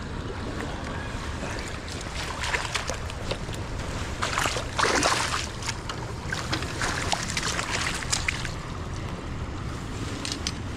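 Steady wind and river noise outdoors, with a run of scattered clicks and rustling bursts in the middle, the loudest about four to five seconds in.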